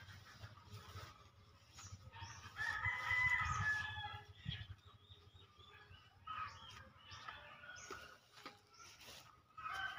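Gamefowl roosters crowing: a loud crow about two and a half seconds in and a weaker one around six seconds in.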